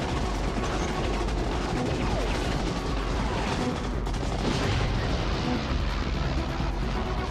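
A steady din of wartime battle sounds, gunfire and explosions, mixed with music.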